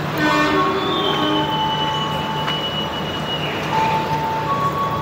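A train at a station platform: a short horn sound just after the start, then long steady high-pitched squeals over a steady low hum.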